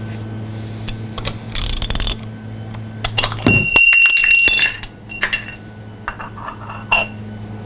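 Small metal parts clinking and tapping, with a brief clear ringing near the middle, as the drain plug and a new sealing washer are handled. A steady low hum runs underneath.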